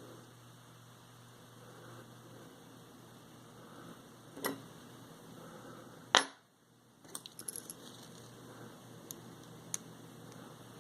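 Small metal parts being handled: scattered sharp clicks and light taps, the loudest about six seconds in and a quick run of small ticks a second later, over a steady low hum.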